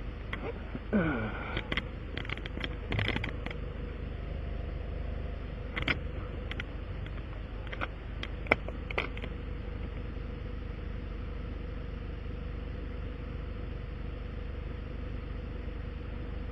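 Steady hum of an idling vehicle engine with a faint constant tone, broken by a few brief clicks and short hisses in the first nine seconds.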